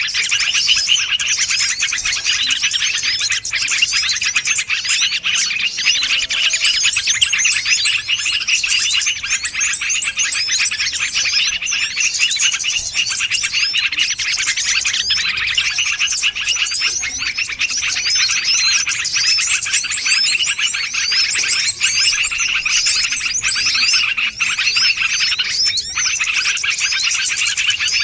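Many small birds chirping and twittering at once in a dense, unbroken chorus of quick high chirps. It is a lure recording of this kind, made to draw wild small birds in.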